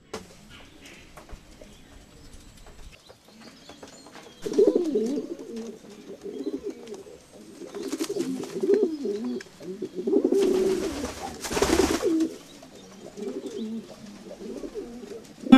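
Pigeons cooing repeatedly, starting about four seconds in. The cooing is broken by two spells of rushing noise, a short one around the middle and a longer one about two-thirds through.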